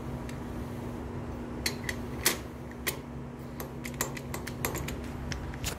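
Steel tool holder clicking and clinking against a Multifix size B quick-change toolpost as it is handled and fitted onto the post. A run of sharp, irregular metal clicks starts about a second and a half in, over a steady low hum.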